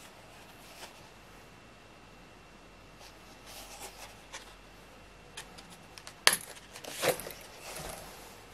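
A leather knife sheath being handled: a sharp snap a little past six seconds in as the press-stud retention strap comes undone, then a short rustling scrape of leather as the knife is drawn from the sheath, among soft handling clicks.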